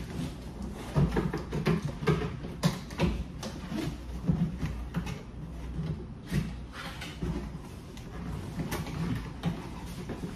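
Laminated cardboard box being handled on a table: flaps pulled open and the box turned over, with irregular knocks and scrapes, busiest in the first half.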